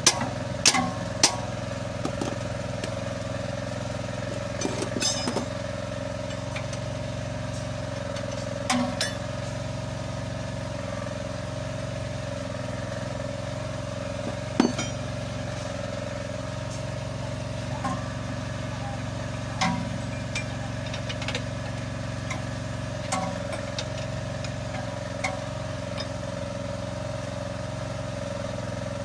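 Sharp metallic clinks of a socket wrench knocking against bolts and brackets on a dump truck's rear suspension while the bump-stop bolts are worked loose: a quick cluster in the first second, then single clinks every few seconds, the loudest about halfway through. Under them runs a steady engine drone.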